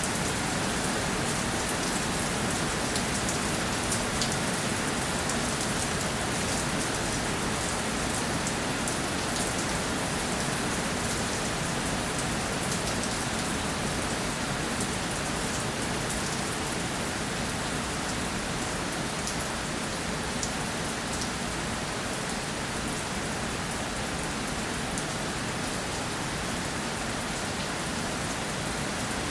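Steady rainfall pattering on a surface, an even hiss with fine scattered drop ticks.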